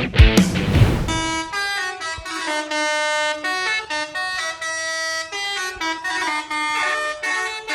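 Bus telolet horn, a multi-tone air horn, playing a tune of held notes that step up and down in pitch. It starts about a second in, just as loud rock music with drum hits cuts off.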